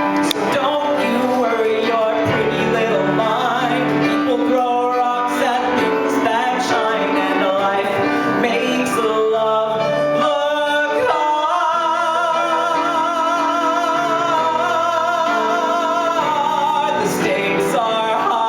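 A male voice singing a ballad with instrumental accompaniment, drawing out long sung notes; about halfway through comes one long held note with a wide vibrato.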